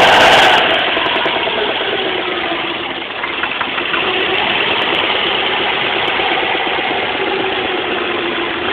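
Subaru WRX flat-four boxer engine running steadily at low speed with a knock from a spun connecting-rod bearing on cylinder #3. The uploader also hears a second knock in it, from the piston hitting the head. It drops from a louder run to the steady low speed about half a second in.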